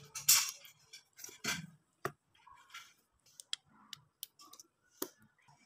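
Mayonnaise squeezed from a plastic squeeze bottle: a few short spluttering spurts near the start and about a second and a half in, then scattered light clicks of the plastic bottle.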